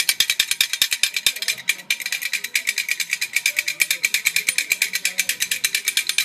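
Hand rattle shaken fast and evenly, a dense run of sharp rattling strokes with a short break about two seconds in, and a faint voice underneath.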